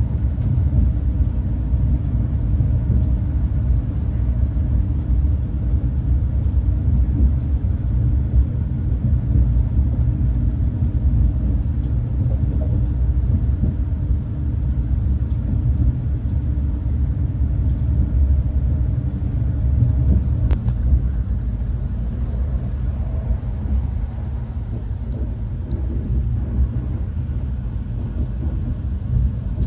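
Steady low rumble of a Renfe class 130 (Talgo 250) high-speed train running along the line, heard from on board. A faint click comes about two-thirds of the way in, after which the rumble eases slightly.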